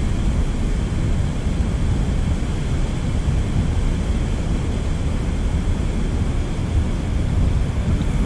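Wind rumbling steadily on the camera microphone: a low, even noise with no distinct events.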